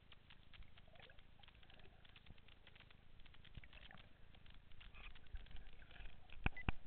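Underwater crackling: a dense, faint scatter of short clicks over a low rumble, with two sharp, louder clicks near the end.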